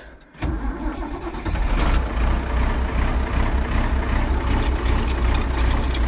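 Ford farm tractor engine cranking over and catching about half a second in. It comes up to speed over the next second and then runs steadily at idle.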